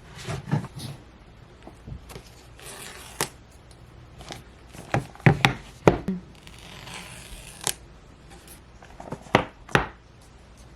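Cardboard and paper packaging being opened by hand: tearing and rustling, with the box sliding apart, and scattered sharp taps and clicks as it is handled.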